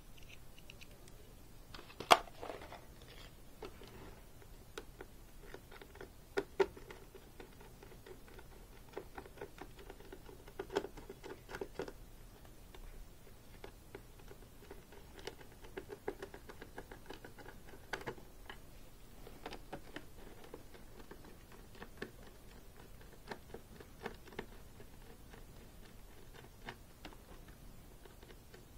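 Small clicks, taps and light scraping from a hand screwdriver, its plastic bit case and the clip screws on a football helmet's facemask being worked. A sharp click about two seconds in is the loudest, with another about six and a half seconds in.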